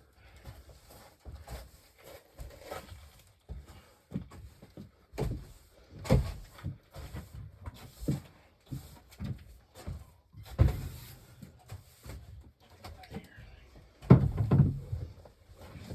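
Irregular knocks and thumps with light rustling, a few heavier hits and a cluster of louder thumps near the end.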